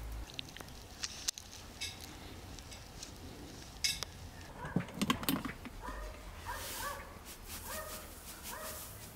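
A dog giving a string of short yelps, about two a second, starting about halfway in, with a few sharp knocks before them.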